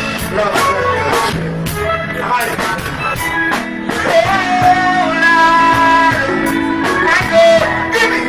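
Live reggae-dancehall music played loud through a sound system, with a steady beat of drum hits, guitar and a singing voice carrying held and bending notes.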